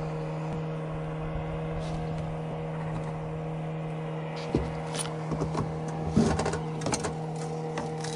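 A boat motor running with a steady low hum. In the second half come scattered clicks and knocks from the spinning reel and rod being handled.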